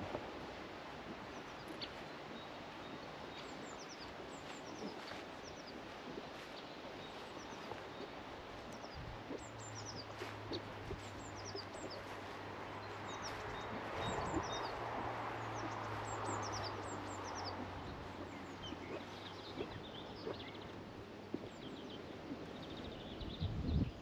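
Several small birds chirping and singing over a steady outdoor hiss. A low steady hum comes in about nine seconds in and fades out about twelve seconds later.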